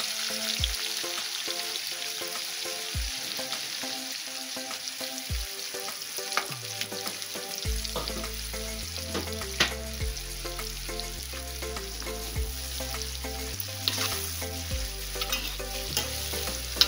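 Sliced onions sizzling as they fry in hot oil in a steel kadai, with occasional sharp clinks and scrapes of a steel ladle against the pan as they are stirred.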